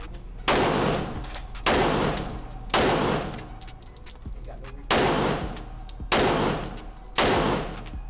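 9mm handgun fired six times at a steady pace of about one shot a second, with a longer gap near the middle, each shot trailing off in reverberation.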